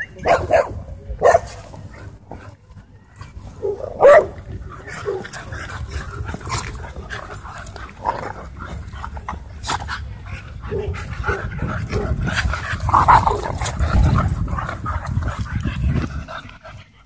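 Dogs playing: a few short, sharp barks in the first four seconds, the loudest about four seconds in, then a long stretch of low rumbling noise with scattered scuffles and yips as the dogs wrestle.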